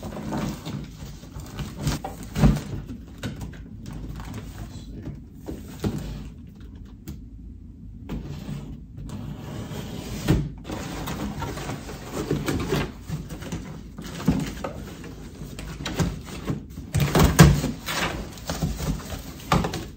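Cardboard box being slit open with a utility knife and handled, with irregular scraping, rustling and knocks of cardboard. The loudest burst comes near the end as the flaps are pulled open.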